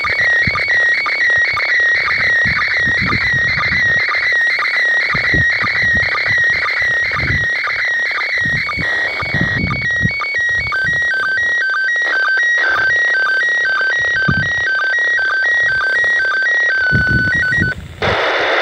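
ISS slow-scan TV (SSTV) image signal coming from an Ailunce handheld radio's speaker: electronic tones stepping back and forth between two pitches in an even pattern, carrying the picture data. About halfway through, the pattern moves to lower pitches. Just before the end the tones cut off into radio static hiss, and gusts of wind buffet the microphone throughout.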